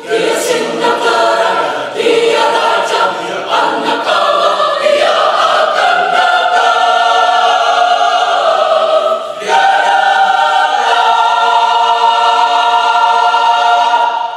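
Mixed-voice church choir singing in chords, with a brief breath about nine seconds in, then a long held chord that is cut off together near the end, closing the piece.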